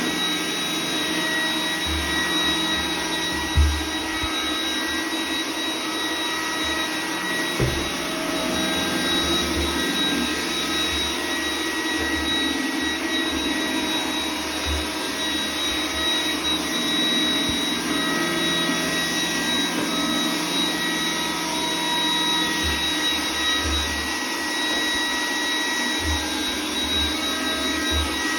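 iRobot Roomba 980 robot vacuum running steadily: suction noise with a steady high whine, occasional low thumps, and a sharper knock about three and a half seconds in.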